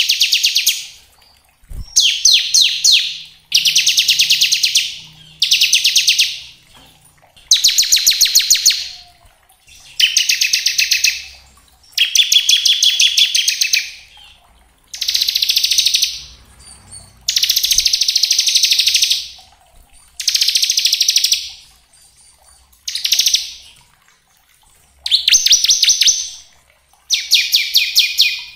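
Bar-winged prinia (ciblek) singing its 'ngebren' song. Each phrase is a fast, rattling run of high notes lasting a second or two, and phrase follows phrase with short pauses about every two seconds.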